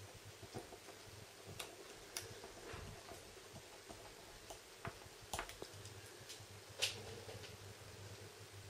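Faint scattered clicks and light taps of a precision screwdriver working the small screws into a Samsung Galaxy S4's midframe, with fingers handling the phone's frame. The sharpest click comes a little before seven seconds in.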